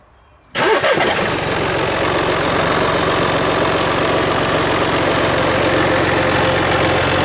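Mini Cooper Diesel's three-cylinder diesel engine starting about half a second in, then idling steadily.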